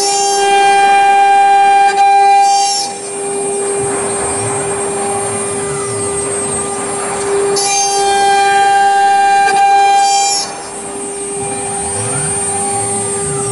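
CNC router spindle running with a steady whine as its bit cuts grooves into a plastic panel. The cutting grows louder and harsher twice, for about two to three seconds each time.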